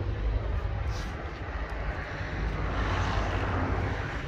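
Steady outdoor rumble and hiss with a heavy low end, swelling about three seconds in.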